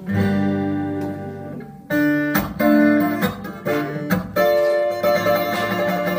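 Twelve-string acoustic guitar strummed in chords with no singing. The first chord rings for about two seconds, then a run of rhythmic strums follows.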